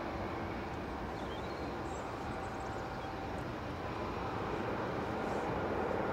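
Airbus A321neo's CFM LEAP-1A turbofans at take-off thrust during the take-off roll: a steady rumbling jet roar that grows louder near the end.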